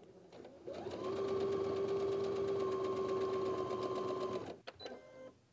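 Baby Lock computerized sewing machine stitching a seam through pieced quilt patches. It starts about a second in, runs at a steady speed with a level whine for about three and a half seconds, then stops, followed by a few short clicks.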